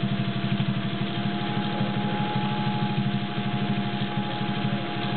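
Singer 201-2 gear-driven sewing machine with its potted motor running at speed, stitching through craft felt: a fast, even rhythm of needle strokes over a steady motor whine.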